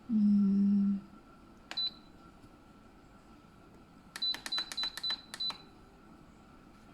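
Electric stewing pot being switched on and set: a low steady buzz for about a second, then a single click with a short high beep, then a quick run of button presses, several with short high beeps, setting it to stew for about an hour.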